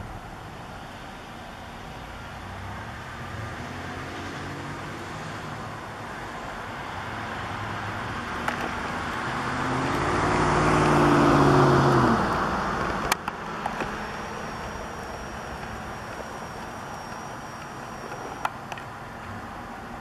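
A road vehicle passing by: its noise swells over several seconds, peaks with a low engine hum whose pitch drops, then fades. A sharp click follows, then a thin high steady tone for a few seconds.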